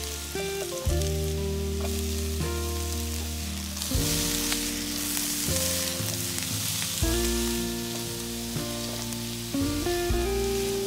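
Food frying in a pan: a steady sizzle that swells louder around the middle. Background music plays along, its chords changing every second or two.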